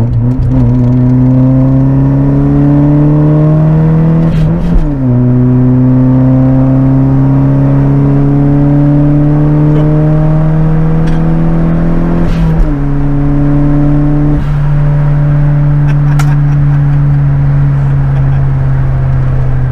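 Straight-piped Nissan 200SX's turbocharged engine, heard from inside the cabin, pulling through the gears. Its note climbs steadily, drops at an upshift about five seconds in, climbs again for longer, drops at a second shift after about twelve seconds, then holds a steady cruising note.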